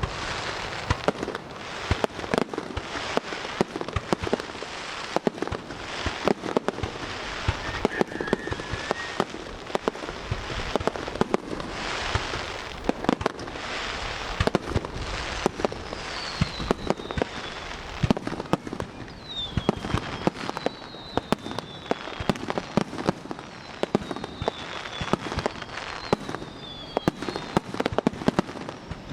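Fireworks display: a continuous run of bangs and crackling shells, with several short falling whistles in the second half.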